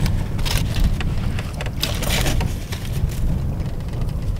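Wind buffeting the microphone as a heavy, steady low rumble, with scattered short crackles over it.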